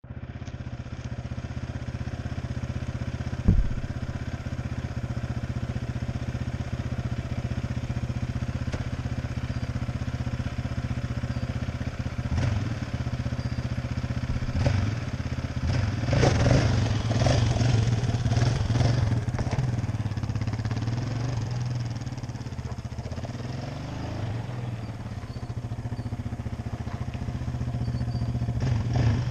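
Yamaha Raptor 700R ATV's single-cylinder four-stroke engine idling steadily, with one sharp knock about three and a half seconds in. Around the middle it is revved and pulls away, then runs more faintly and grows louder again near the end.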